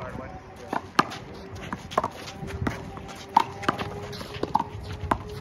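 Handball rally: about seven sharp slaps, irregularly spaced, of the rubber ball being hit by hand and striking the concrete wall and floor, with shoes scuffing and squeaking on the court.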